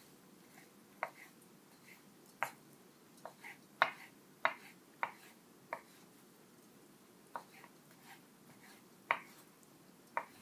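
A dozen or so light, sharp clicks and taps of kitchen work, coming at irregular intervals, the loudest a little under four seconds in.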